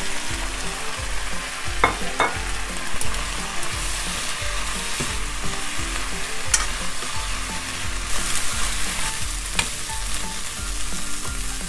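Eggplant and onion pieces sizzling in hot oil in a frying pan as they are tossed with chopsticks to coat them in the oil, with a few sharp clicks of the chopsticks against the pan.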